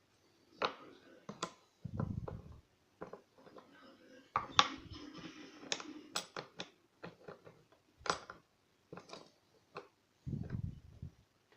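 Small metal clicks and taps of a lock's parts being handled as the lock is taken apart, with a few duller knocks in between.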